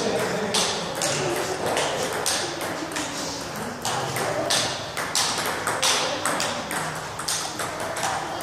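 Table tennis balls clicking on tables and bats in quick, irregular strikes, several a second, with people talking in the hall.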